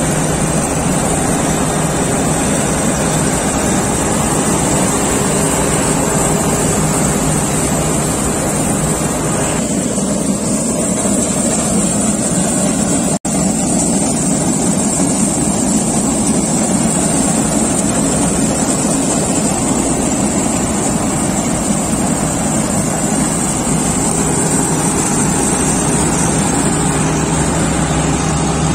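A Preet tracked combine harvester running steadily under load while cutting soybean: a continuous engine drone with the clatter of the cutter and threshing machinery.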